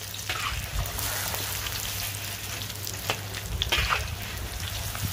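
Batter-coated chicken pieces deep-frying in very hot oil in a black iron wok, a steady sizzle, while a perforated metal skimmer stirs them. The skimmer scrapes and knocks against the wok a few times: once just after the start, and twice after about three seconds.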